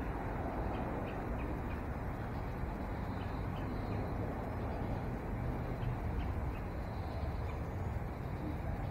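Steady low rumble of idling vehicle engines, with faint, scattered bird chirps.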